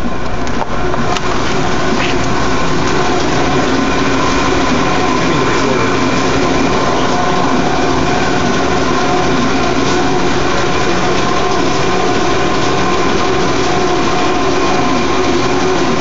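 Helium refrigerator's expansion engine and its electric drive motor running, a loud, steady machine hum with several held tones.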